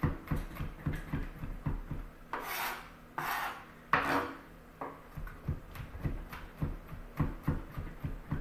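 Chef's knife mincing garlic on a plastic cutting board, the blade rocking and tapping the board in quick, even knocks about three a second. A few brief scraping sweeps of the blade across the board come about two to four seconds in.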